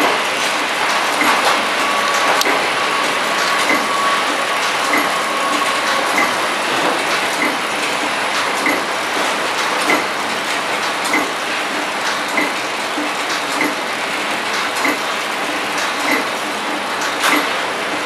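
Horizontal flow wrapping machine running, a steady mechanical clatter with a regular click about every second and a quarter, once per wrapping cycle. A thin whine sounds over it for the first six seconds or so.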